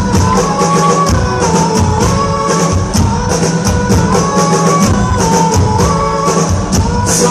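Live rock band playing loud, with a steady beat of bright percussion strikes, a bass line and a repeating melody on top.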